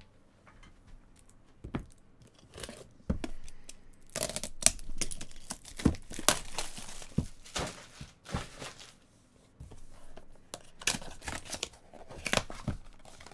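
Plastic shrink-wrap being torn and peeled off a cardboard trading-card box: crinkling and crackling with sharp snaps. A few light clicks come first, then a dense stretch of crackling from about four seconds in, and another flurry near the end.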